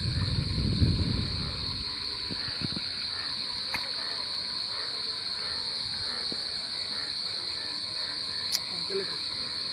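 A steady, high-pitched chorus of crickets chirping. A low rumble of handling noise is heard in the first second or so, and two sharp clicks come about a third of the way in and near the end.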